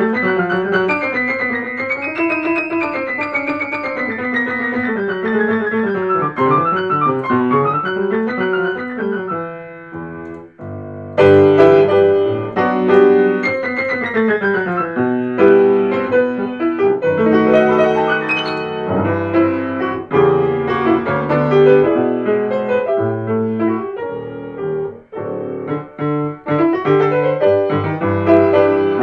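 Solo piano music: flowing runs of notes, thinning to a brief quiet passage about ten seconds in, then louder chords resuming.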